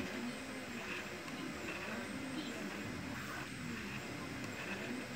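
CoreXY 3D printer running a print: its stepper motors whine in tones that rise and fall again and again as the print head traces circular paths, over a steady whir of its cooling fans.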